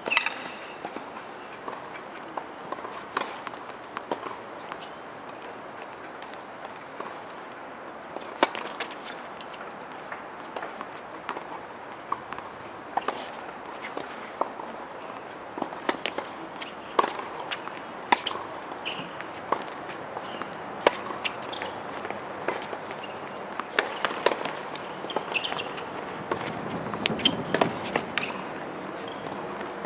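Tennis ball hit by rackets and bouncing on a hard court: a string of sharp pops and knocks at irregular intervals, few in the first half and coming thick and fast in a rally over the second half.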